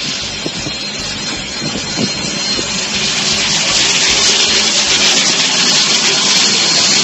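Steam train making a loud steady hiss that grows louder about three seconds in.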